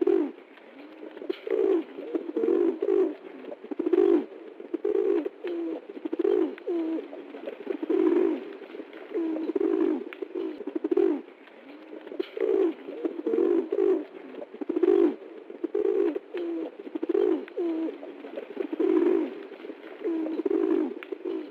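Pigeon cooing over and over in a steady series of low, throaty coos.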